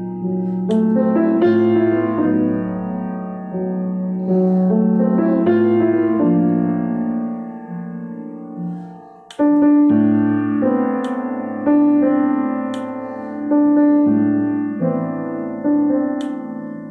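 Solo grand piano playing slow, held chords. About eight seconds in the sound fades almost to nothing, then a loud chord comes in, followed by chords struck about every second and a half.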